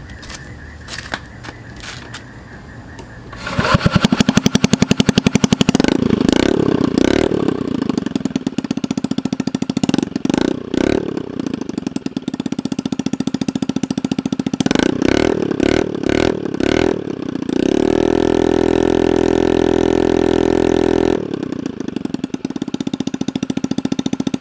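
Honda Ruckus scooter engine running through its original super-short exhaust with no silencer. It starts about three and a half seconds in, idles with a few quick revs, is held at a steady high rev for a few seconds near the end, then drops back to idle.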